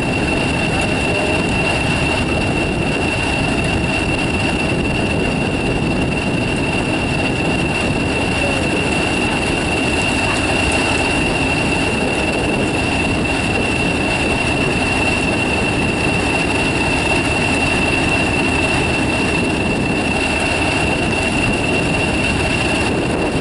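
English Electric 16-cylinder diesel engine of a Class 40 locomotive idling steadily, with a constant high-pitched turbocharger whistle over the engine's rumble.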